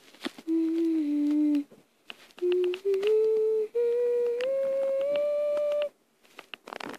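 A slow tune in long, steady held notes, dipping at first and then climbing step by step, with short pauses between phrases and a few faint clicks.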